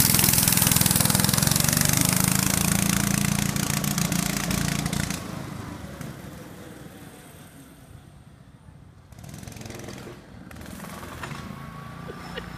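Minibike's small engine running loudly as the bike pulls away, then dropping off sharply about five seconds in and staying faint as it rides off into the distance.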